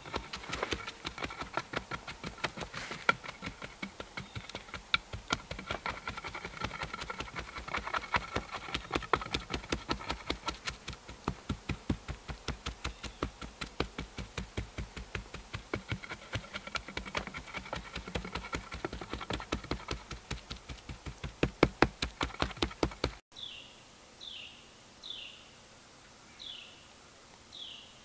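Rapid wood-on-wood knocking, about four or five knocks a second, as upright wooden sticks are pounded into the ground to form a stick wall. The knocking cuts off suddenly near the end, and a bird gives a string of short, falling chirps.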